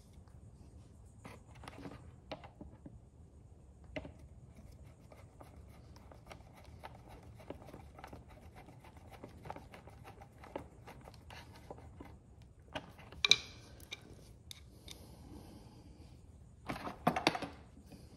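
Faint clicking and scraping of a screwdriver driving screws into a plastic scooter headlight housing and front cowl. A sharp plastic knock comes about 13 seconds in, and a cluster of louder knocks near the end as the cowl is moved.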